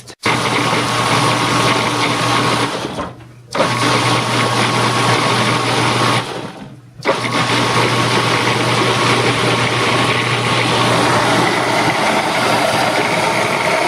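Electric food processor running, chopping and mixing vegetables. It runs in three spells with two short stops, about 3 s and 6.5 s in.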